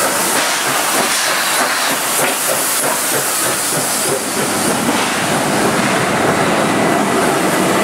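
NSW 59 class steam locomotive 5917 rolling slowly past at close range with a steady loud hiss of steam, its train of wagons and carriages following on the rails.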